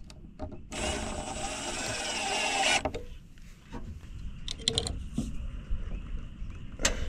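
Cordless drill driving a screw into a wooden 2x6 for about two seconds, getting louder until it stops suddenly as the screw seats. A few sharp knocks of a claw hammer on the board follow, the loudest near the end.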